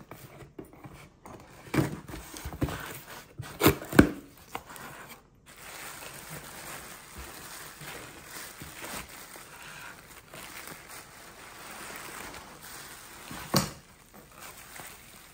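Cardboard shipping box being opened and handled, with a few sharp knocks of the flaps, then a steady crinkling rustle of bubble wrap as a wrapped package is pulled out of the box.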